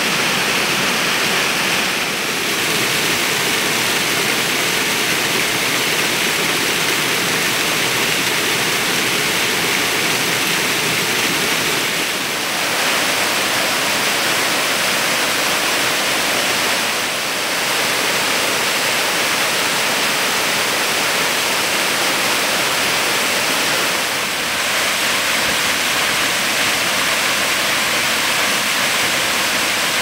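Waterfall: white water pouring and splashing over rocks, a loud steady rush that dips slightly and briefly four times.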